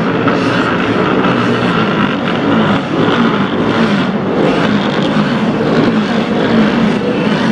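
Engines of vintage racing motorcycles built before 1972, running steadily, their pitch wavering up and down.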